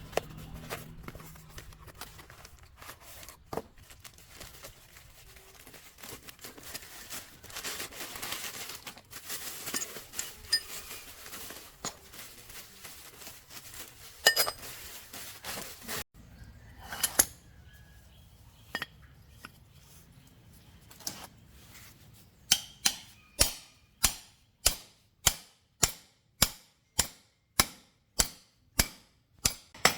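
Metal tools and parts being handled, with scattered clinks and knocks, then, about two-thirds of the way through, a steady run of sharp hammer blows on metal, about two a second, each dying away quickly.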